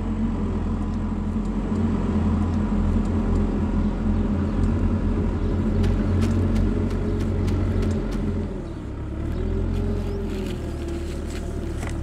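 Heavy vehicle engine running steadily with a low rumble, easing off and shifting pitch briefly about nine seconds in.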